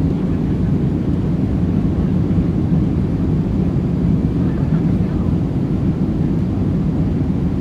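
Jet plane engines at take-off power: a loud, steady, low rumble that neither rises nor falls.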